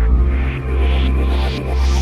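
Brostep electronic dance music: a heavy, steady deep bass under swept noise that rises in pitch in steps, a build-up section of the track.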